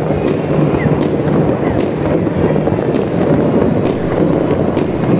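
A fireworks display with many shells bursting at once. Sharp cracks roughly once a second stand over a continuous rumble of more distant bursts, with a couple of short rising whistles.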